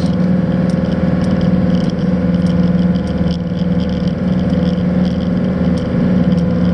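Mercedes camper van's engine running steadily while driving with a broken exhaust, heard from inside the cab as a loud, even drone; the patched exhaust is leaking.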